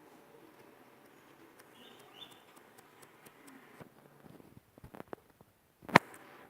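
Faint handling noises and small taps on a recording phone as it is fumbled to stop the recording, with scattered light clicks and one loud sharp click about six seconds in.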